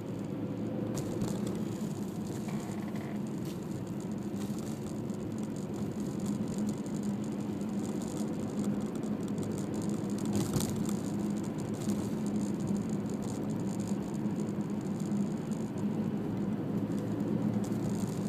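A car driving: steady engine and road noise, with a few short knocks and rattles, the loudest a little past halfway.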